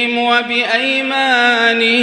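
A man's melodic Quran recitation (tajweed) in a single held, ornamented vocal line, drawing out the end of a word with a brief dip in pitch about half a second in.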